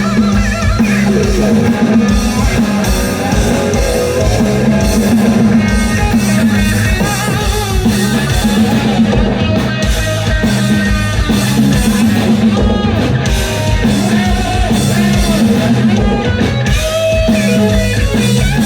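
Rock band playing an instrumental passage, with electric guitar and drum kit at full volume.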